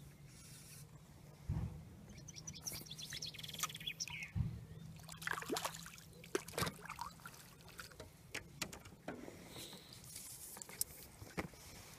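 A hooked fish splashing at the surface as it is scooped into a landing net, with sharp splashes and water dripping off the net as it is lifted out. Birds chirp in the background, and there are a couple of dull knocks in the first half.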